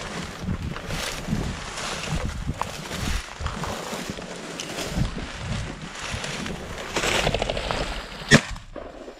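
Dry cattail stalks rustling and crunching as someone pushes through them on foot, with one sharp knock near the end.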